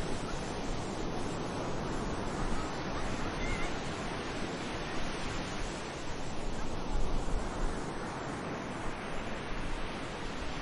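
Sea waves washing onto a beach, a steady rush of surf that swells and eases again about two-thirds of the way through, with low gusts of wind on the microphone.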